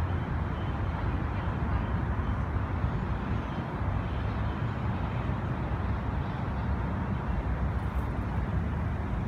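Steady outdoor ambience: a low rumble with some hiss, unchanging throughout.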